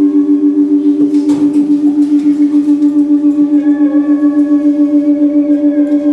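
Sustained electronic drone note holding one pitch and pulsing with a fast tremolo, about five pulses a second. A higher held note joins about halfway in, over faint scratchy plucked sounds.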